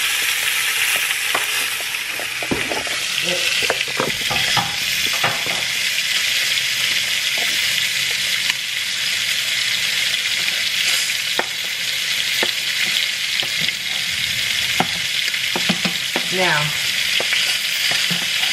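Hot grease sizzling steadily in a frying pan on the stove, with scattered clicks and scrapes of a metal spoon stirring in a pot.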